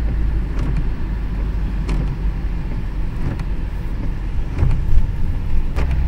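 Steady low rumble of a car's engine and tyres on a wet road, heard from inside the cabin, with a few faint ticks.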